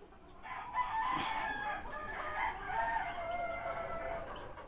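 A rooster crowing in the background: one long, wavering call that starts just under a second in and trails off near the end.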